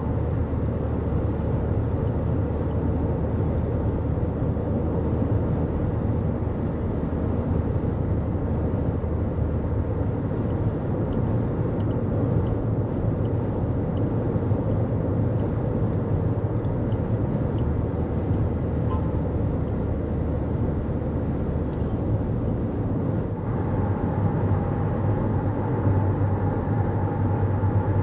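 Steady road noise of a 2024 Toyota Corolla Cross cruising at highway speed: an even low rumble of tyres and engine. A steady higher hum joins near the end.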